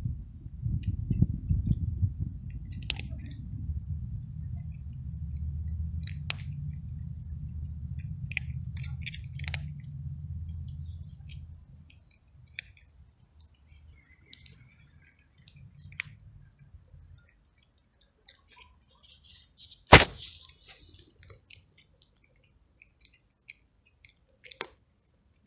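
A stray tabby cat crunching dry kibble: scattered crisp clicks and crunches. A low rumble underlies the first half and stops about halfway through. One sharp, louder click comes near the end.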